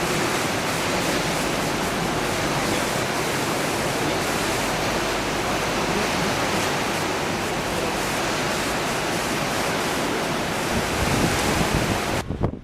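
The flooded River Cree in spate, its water rushing in a steady, even roar, with wind rumbling on the microphone for a moment near the end before the sound cuts off abruptly.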